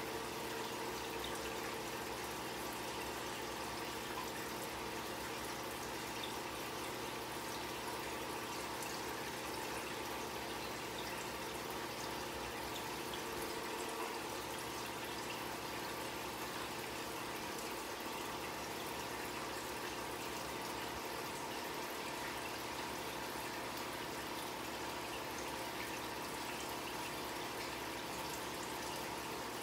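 Steady trickle and splash of circulating water in an aquarium, with a faint steady hum under it.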